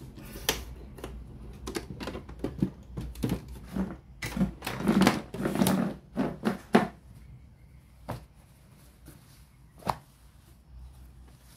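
Irregular clicks, taps and knocks of hard plastic and metal parts being handled on a Sanyo MW220K radio-cassette player under repair. The clicks come thickest a few seconds in, then thin to a few single clicks near the end.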